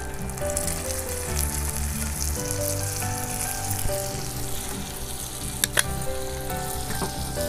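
Small-fish (nethallu) curry sizzling and bubbling in a pan over a wood fire, with a little water just added to the gravy. Two sharp clicks sound a little over five seconds in, over quiet background music.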